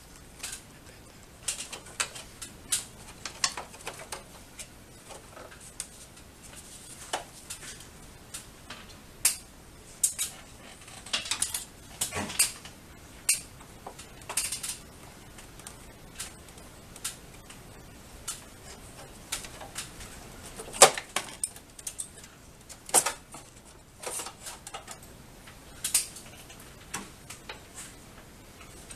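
Irregular clicks, taps and light clatter of plastic and metal parts as screws and the drain tray are removed from a split air conditioner's indoor unit, with one louder knock about two-thirds of the way through.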